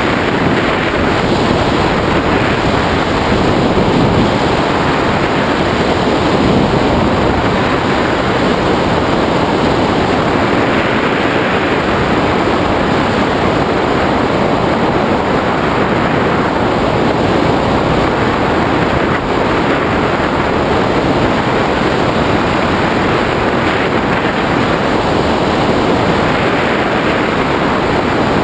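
Steady, loud wind rushing over the microphone of a tandem hang glider in flight.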